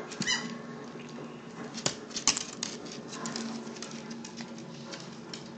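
Rapid, irregular crackling clicks and rustling close to the microphone, with a few louder clicks about two seconds in.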